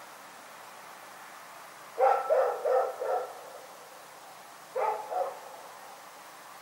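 A dog barking: a quick run of four barks about two seconds in, then two more barks a couple of seconds later.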